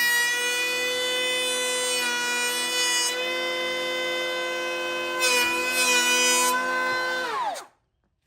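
DeWalt 20V MAX brushless cordless hand planer (DCP580B) running with a steady high-pitched whine, planing a board along its fence, with louder cutting noise for about a second around five seconds in. Near the end the motor is switched off and spins down, its pitch falling until it stops.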